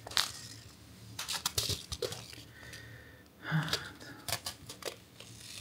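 Aluminium foil seed pouch crinkling and rustling in the hands as it is torn open along its perforation and pulled apart, in a series of short crackles.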